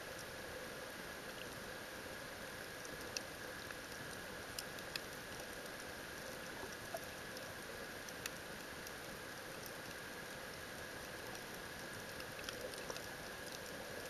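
Underwater ambience picked up by a submerged camera: a steady hiss with a faint whine, and scattered sharp clicks and crackles.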